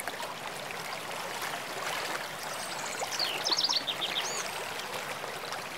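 Steady rush of falling, splashing water from a creek cascade, with a songbird singing one quick phrase of rapid whistled notes about three seconds in.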